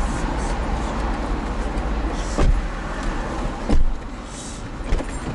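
Passengers getting into the back seat of a BMW 5 Series sedan, with rustling and a bump, then the rear door shutting with a solid thump a little before four seconds in. Steady city traffic noise comes in through the open door and is muffled once the door is shut.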